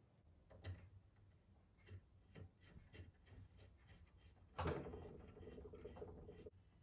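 Faint clicks of small metal parts being handled, then a louder metal clank about four and a half seconds in, followed by a steady hum that stops abruptly about two seconds later.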